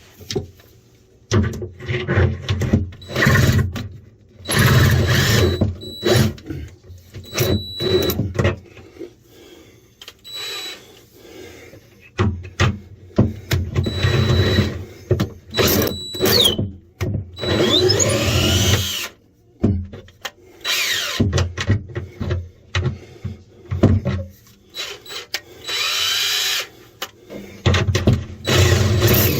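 A drill is run in reverse in many short, start-stop bursts, spinning up with a rising whine each time. It is trying to back out a stripped screw.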